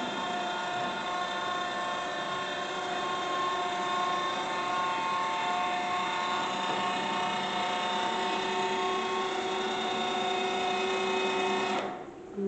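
Electric linear actuator motor whining steadily, with several steady tones at once, as it raises a floor hatch door. It cuts off suddenly near the end as the door reaches fully open.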